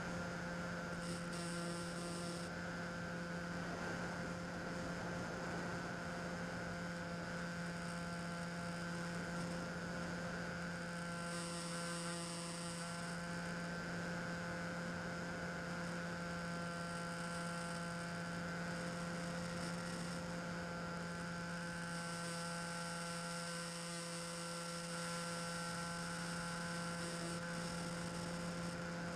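Bixler 2's electric pusher motor and propeller droning steadily in flight, picked up by a camera on the plane's nose. A higher hiss swells around the middle and again near the end.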